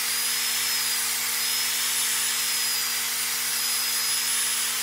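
Handheld power sander with a foam-padded sanding disc working the outside of a wooden bowl as it turns on a lathe: a steady whirring hiss with a faint high motor whine, cutting off suddenly at the very end. A low steady hum runs underneath.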